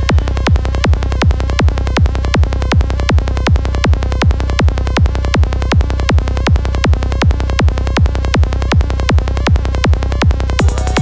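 Electronic trance track at 160 BPM: a steady four-on-the-floor kick drum, about 2.7 beats a second, each kick dropping in pitch, over a sustained low bass. Near the end a bright high percussion and synth layer comes in.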